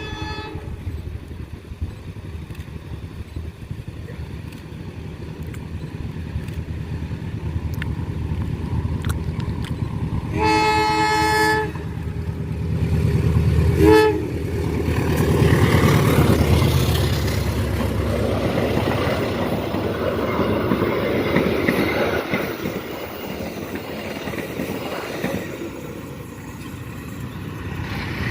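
Passenger train approaching and passing at speed: the locomotive's engine rumble builds, its horn sounds one long blast about ten seconds in and a short toot soon after, then the wheels and coaches rush past loudly for about ten seconds before easing off near the end.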